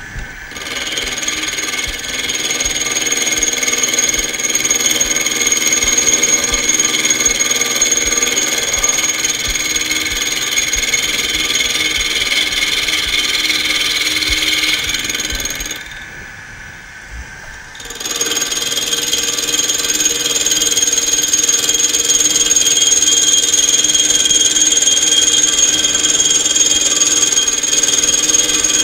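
Benchtop mini mill running, its end mill facing the top edge of a cast-iron steam-engine box bed casting in a light finishing cut. It makes a steady whine mixed with cutting noise, and the sound drops away for about two seconds partway through before the cut resumes.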